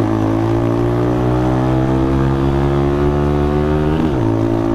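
Motorcycle engine pulling uphill under load, its pitch climbing slowly as it accelerates in gear, then dropping with an upshift about four seconds in.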